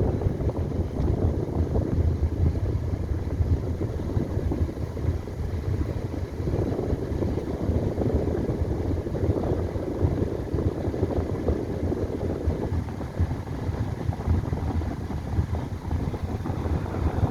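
Helicopter running steadily, a dense low rotor chop over engine noise.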